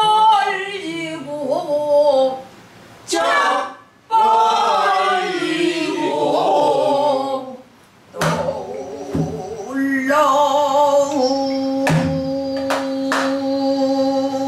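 A woman singing pansori in a strong voice with wide vibrato, phrases broken by short pauses and ending on a long held note, while accompanying herself on a buk barrel drum with a stick; sharp drum strokes fall every few seconds.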